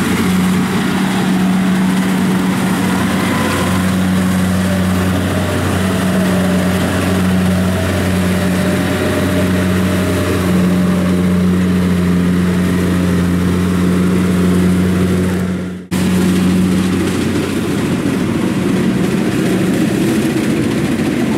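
Kubota DC70 combine harvester's diesel engine running steadily under load as the machine cuts rice, a constant low hum. The sound briefly cuts out about three-quarters of the way through, then the same engine sound carries on.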